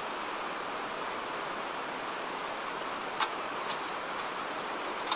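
Steady rushing water noise, with a few small sharp clicks and taps about three to four seconds in.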